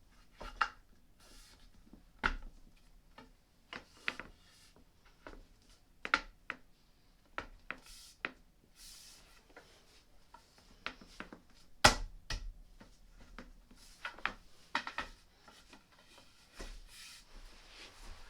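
Irregular knocks, taps and rubbing as the IKEA Gulliver changing table's panels and small wooden pegs are handled and fitted together, with one sharp knock about two-thirds of the way through the loudest.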